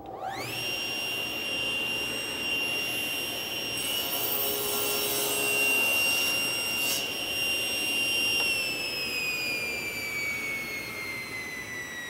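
Table saw motor starting with a rising whine that settles into a steady high whine, then the blade crosscutting an oak board with a rougher, noisier sound for about three seconds. Near the end the saw is switched off and the whine falls steadily in pitch as the blade coasts down.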